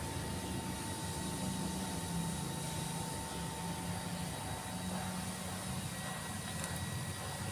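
Steady background rumble and hiss with a faint steady high whine, unchanging throughout.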